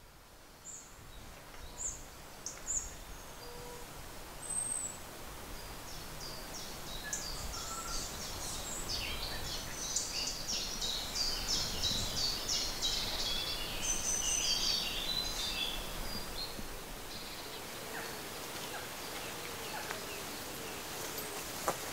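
Songbirds singing: a few scattered chirps at first, then a busy run of song through the middle, over a faint low rumble. The sound fades in from near silence at the start.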